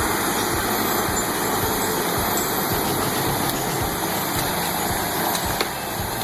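Caterpillar 525 grapple skidder's diesel engine running steadily under load.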